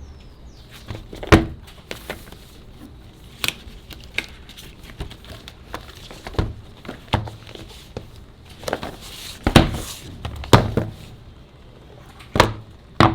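Apple Watch box and packaging being handled during unboxing: irregular knocks, taps and clicks, a few of them sharp, with a short rustle a little past halfway.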